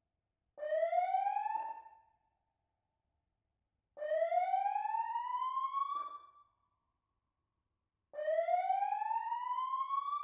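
Emergency-vehicle siren giving three rising whoops, each climbing in pitch over one to two seconds and cutting off with a click, with pauses of a second and a half to two seconds between them.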